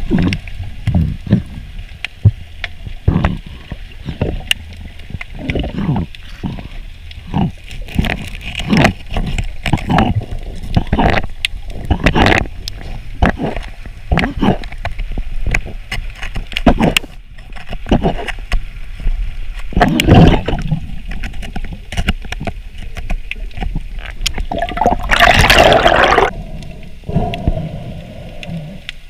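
Underwater sound picked up by a freediver's camera in shallow water: irregular knocks and clicks from the diver's movement and gear against the rocks, over a low rumble, with a louder rushing burst about 25 seconds in.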